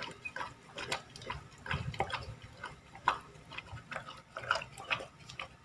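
A dog eating a wet meal of boiled liver, vegetables and kibble from a plastic basin: irregular wet chewing and smacking sounds.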